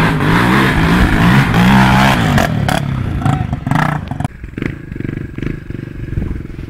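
Honda XR 250 Tornado dirt bike's single-cylinder four-stroke engine revving up and down as it ploughs through a flooded stream, with loud splashing water. After a cut about four seconds in, a motorcycle engine runs steadily at low revs.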